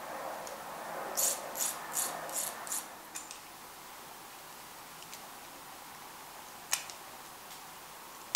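Nail clipper snipping a tiny Maltese puppy's nails: two sharp clicks near the end. They follow a few seconds of rubbing and rasping at the start, with about five quick strokes.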